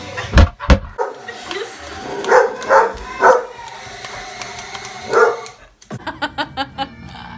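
A dog barking: three barks about half a second apart, then one more a couple of seconds later. A quick run of clicks follows near the end.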